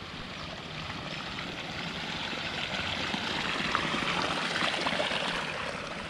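Running water in a small stream or irrigation channel, a steady rushing that grows louder about halfway through and eases off again near the end.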